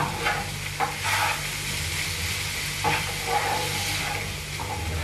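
Chopped onion and garlic sizzling in hot olive oil in a frying pan, with a wooden spatula stirring and scraping against the pan now and then.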